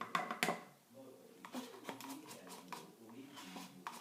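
A spoon working thick slime into a plastic container: soft scraping and a few sharp clicks of the spoon against the plastic. It opens on the tail of a rhythmic percussive music clip that stops about half a second in.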